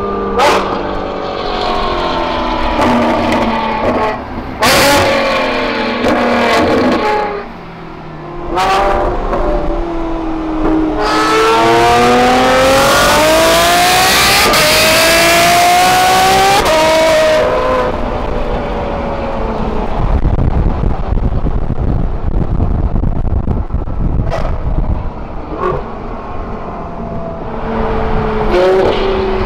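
Ferrari engines on Kline Innovation exhausts, the F12's V12 and the 458 Spider's V8, revving and accelerating, rising and falling in pitch with several sharp exhaust cracks. The longest and loudest part is a rising run of about six seconds in the middle, followed by a lower rumble with a few more cracks near the end.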